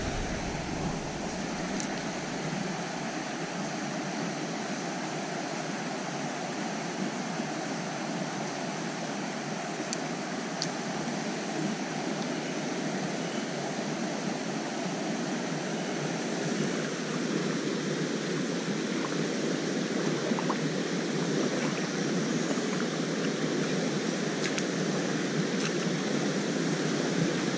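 Steady rush of a shallow creek running over rocks, getting a little louder in the second half.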